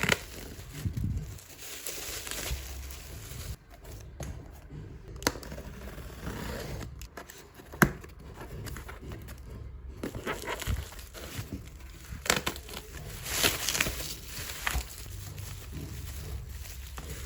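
Crinkling and rustling, with a few sharp light knocks or clicks now and then.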